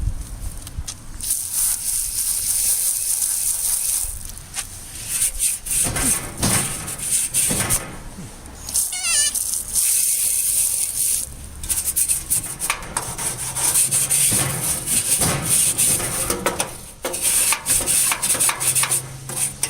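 Scrubbing dried rust-remover residue off the steel of a vintage Craftsman tool chest: a hissy rubbing scrape in repeated strokes with short pauses, and a brief squeak about nine seconds in.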